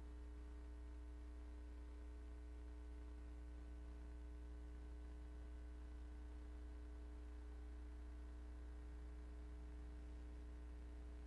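Steady low electrical hum with faint higher overtones, unchanging throughout.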